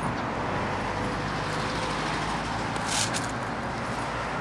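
Steady outdoor background of distant road traffic, with a brief higher hiss about three seconds in.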